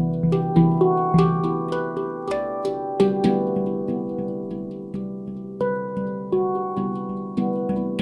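Ayasa handpan in C Aegean tuning played by hand: notes tapped about two a second, each ringing on and overlapping into a soft melody.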